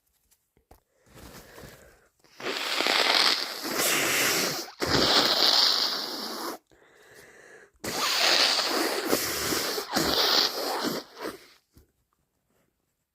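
A person blowing a congested, snotty nose hard, several long forceful blows of one to two seconds each, with a short pause before the last.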